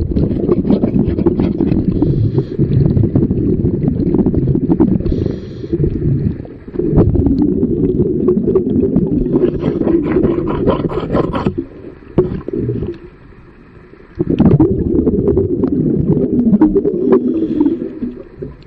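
Underwater scuba breathing: a diver's exhaled bubbles rumbling and gurgling in long bursts, broken twice by quieter pauses for the inhale through the regulator.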